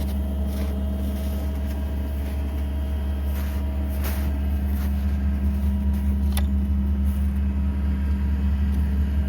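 A steady engine drone at idle, a low hum that stays even throughout, with a few faint light clicks, the first about three and a half seconds in.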